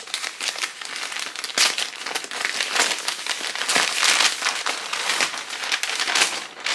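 Packaging being unpacked by hand: a continuous crinkling and rustling made of many quick crackly strokes, as the wrapping around folded clothes is pulled open.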